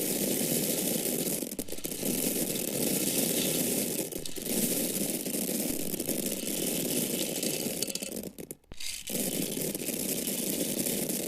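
Dry corn kernels falling and pouring in a continuous dense rattle. The stream thins briefly twice and nearly stops for about half a second near the end before pouring again.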